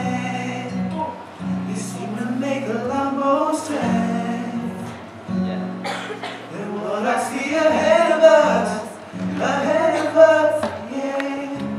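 A young man singing solo into a microphone in melodic phrases, over sustained instrumental chords in the accompaniment.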